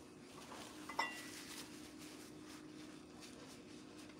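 A single light clink of a metal utensil against a ceramic dinner plate about a second in, with a short ring, over quiet room tone with a faint steady hum.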